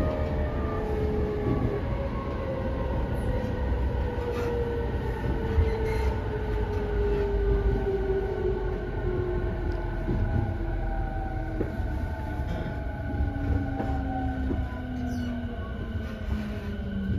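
Running sound inside a JR East E217-series electric multiple unit slowing down: the traction motor whine falls steadily in pitch over a constant low rumble, with a few sharp clicks from the wheels on the rails.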